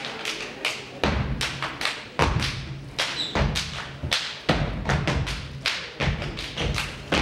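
Step team stepping in unison: feet stomping on the stage floor and hands striking, a fast rhythm of loud thuds and sharp slaps, several a second.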